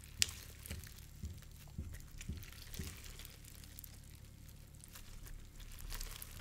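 Clear Bingsu slime, a clear slime packed with tiny beads, being squeezed and stretched by hand. It gives faint scattered crackles and clicks, with one sharper click just after the start and soft taps about every half second in the first few seconds.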